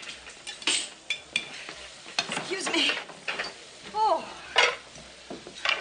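Kitchen clatter: plates, pans and utensils knocking and scraping over steak sizzling in a frying pan, with a short wordless voice sound a little after four seconds in.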